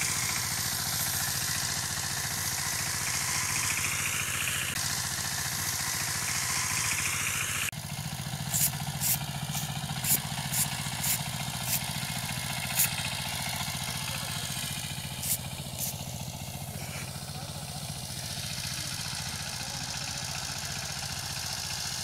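Power tiller engine running steadily with a low, even hum. A hiss lies over it for the first several seconds, then a string of sharp, high clicks comes between about 8 and 16 seconds in.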